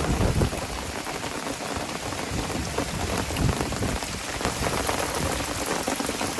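Heavy rain falling as a steady, even hiss, with low rumbles swelling about half a second in and again about three and a half seconds in.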